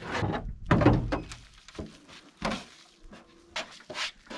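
Several thunks and knocks of car sheet metal being worked loose, a body panel coming off a junked car, the loudest about a second in.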